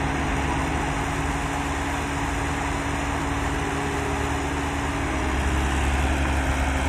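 Heavy diesel engine running steadily with a low hum, getting louder about five seconds in.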